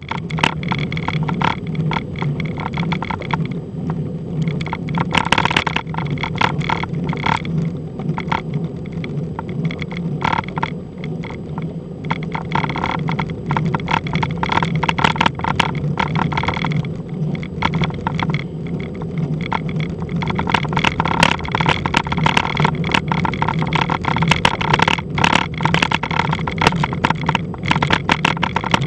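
A motor vehicle engine running steadily, with a constant rattle of irregular clicks and knocks over it.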